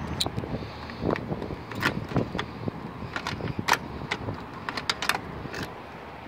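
Keys jangling with a run of irregular sharp clicks at the door lock of a Volkswagen Type 2 bus, about a dozen, the sharpest near the middle.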